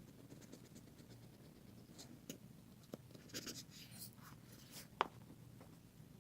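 Faint scratching and ticking of a small screwdriver scraping old adhesive out of an iPad Air's housing, in short irregular strokes, the sharpest tick about five seconds in.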